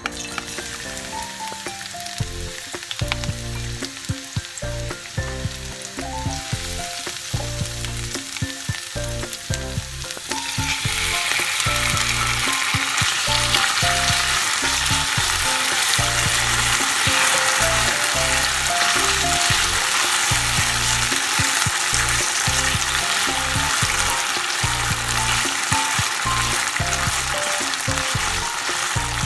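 Light oil sizzle in a nonstick pan, jumping to a much louder, dense frying sizzle about ten seconds in as thin-sliced marinated beef goes into the hot oil and is stirred with a silicone spatula. Background music with a steady bass pulse runs under it.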